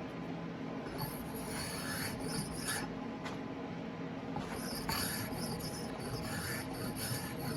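WoodRiver spokeshave shaving wood from an axe handle: scraping cutting strokes, one starting about a second in and a longer one from about the middle on. A steady low hum sits underneath.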